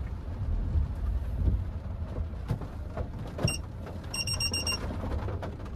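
Inside the cabin of a Hyundai HB20 1.6 automatic, a low engine and road rumble, then a single high beep about three and a half seconds in, followed by a quick run of about six beeps as reverse gear is selected: the car's reversing warning.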